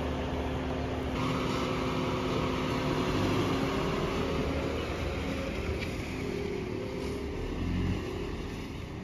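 A vehicle engine running steadily: a low, even hum over a noisy outdoor background, easing off a little near the end.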